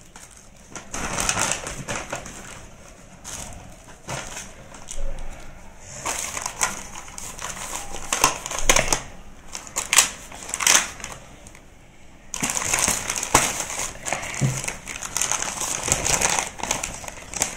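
Cardboard box being opened and handled: irregular rustling and scraping of cardboard broken by sharp snaps, the loudest snaps about eight to eleven seconds in, then a longer stretch of continuous crinkling and scraping.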